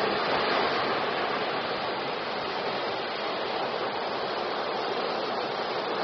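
Ocean surf: waves breaking and foam washing toward the shore in a steady rush, loudest right at the start as a wave crashes.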